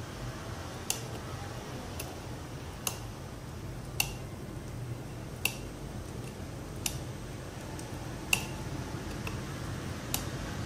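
A small DIP switch on a circuit board being flicked one slide at a time with a fingertip: about eight light, sharp clicks a second or so apart.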